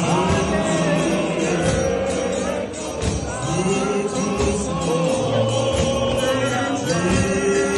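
A large crowd of men singing a hymn together in harmony, loud and sustained, with a rhythmic beat running under the voices.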